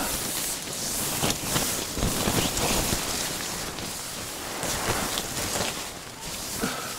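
Nylon ice-fishing tent fabric rustling and crackling close by, with irregular sharp crinkles over a steady hiss.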